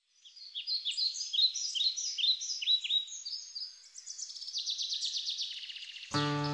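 Songbird singing: a series of quick down-slurred chirps, then a rapid trill of fast repeated notes. Music with sustained notes starts abruptly near the end.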